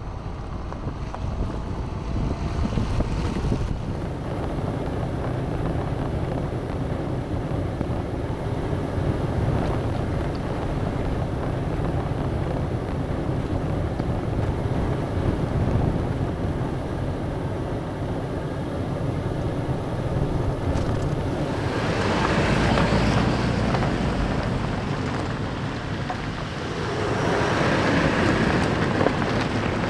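Off-road vehicle driving along a dirt trail: steady engine and tyre noise, with wind buffeting a microphone mounted on the outside of the vehicle. The noise swells twice near the end as vehicles roll along the gravel road.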